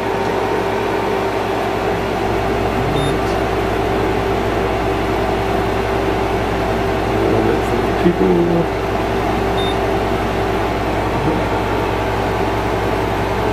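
Small window air conditioner running on high cool: a steady blowing fan and compressor noise with a constant hum.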